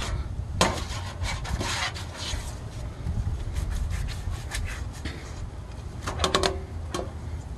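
Repeated wiping and rubbing strokes on a thin aluminium pizza pan as cooking oil is spread over it to cut friction between the pans, then a short metallic clatter with a brief ring about six seconds in as one pan is set on top of the other.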